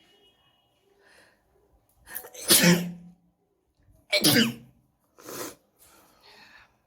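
A woman sneezing loudly twice, about two seconds apart, each sneeze's voice sliding down in pitch, followed by two shorter, quieter breathy bursts.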